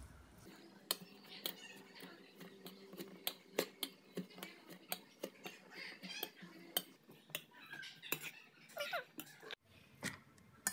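A spoon clinking and scraping against a stainless steel bowl while stirring a moist filling of shredded jicama, carrot and minced chicken, with irregular clinks about two or three times a second.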